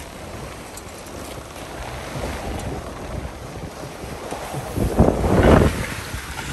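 Wind buffeting the microphone over water rushing and splashing past a sailing trimaran's hull, with a louder surge about five seconds in.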